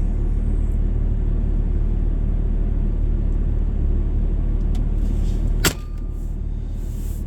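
Steady low rumble of a vehicle heard from inside the cabin while driving. A single sharp click about five and a half seconds in, after which the rumble is somewhat quieter.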